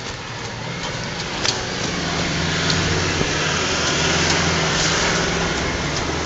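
Toyota LandCruiser four-wheel drive's engine running as it climbs a rocky track, getting steadily louder as it comes closer, with a few sharp clicks from stones under the tyres.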